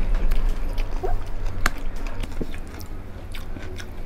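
Close-miked eating: biting and chewing crispy fried pork tenderloin by hand, with many scattered sharp clicks of teeth and mouth over a low steady hum.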